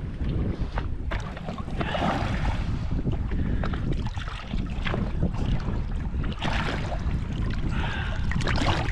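Wind buffeting the microphone on a small fishing boat as an irregular low rumble, with brief spells of water splashing against the hull.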